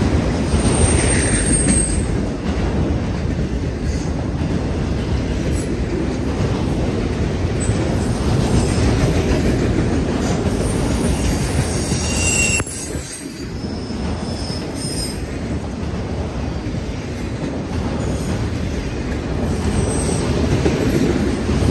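Freight train of autorack cars rolling past close by: a steady heavy rumble of wheels on rail, with short high-pitched squeals from the wheels now and then.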